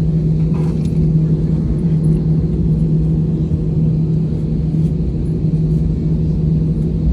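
Steady airliner cabin drone: engine and airflow noise heard from inside the passenger cabin, a constant low rumble with a steady hum and no change in level.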